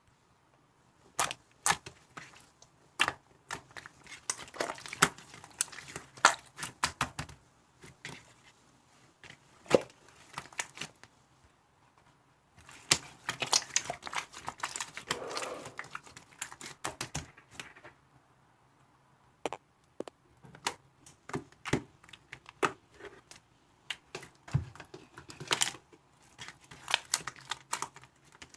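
Irregular sharp clicks and taps with a stretch of crinkling in the middle, like small objects being handled close to the microphone.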